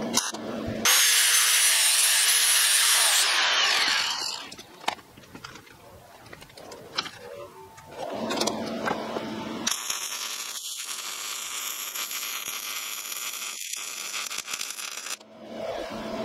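Electric arc welding on the steel burner tube and top plate of a homemade propane forge: a loud weld of about three seconds near the start, then after a lull a longer, fainter run of welding from about ten seconds in.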